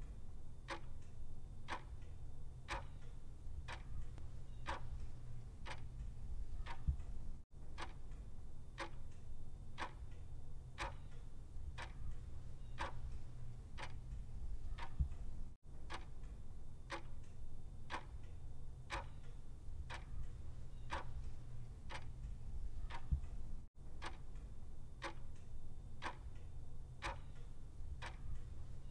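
Clock ticking steadily, a regular tick-tock somewhat faster than once a second, over a low steady hum. The sound cuts out completely for an instant three times, about every eight seconds.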